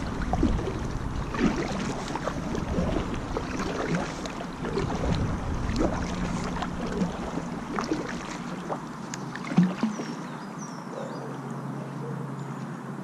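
Double-bladed kayak paddle dipping and splashing in calm canal water stroke after stroke, with drips and the odd knock of the paddle against the inflatable kayak, and one sharper knock about ten seconds in. Wind rumbles on the microphone for the first eight seconds or so, and small birds chirp faintly near the end.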